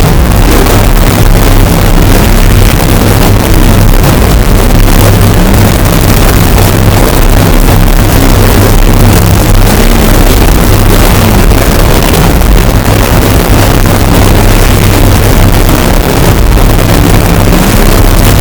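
Extremely loud, heavily distorted bass sound effect: a steady, deep low drone, clipped so hard that a harsh buzzing noise fills every pitch above it, with no separate booms or breaks.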